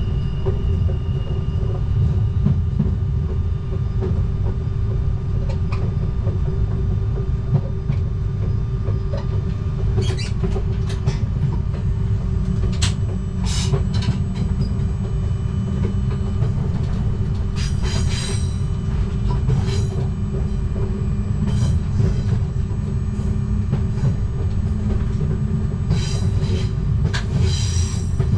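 Z 20500 double-deck electric train running, heard from the cab: a steady low rumble with a constant hum, and from about a third of the way in, short high wheel squeals and clicks at several moments.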